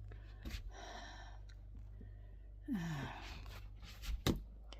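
A woman's breathy sigh, falling in pitch, about three seconds in, then a couple of sharp knocks shortly after, over a steady low hum.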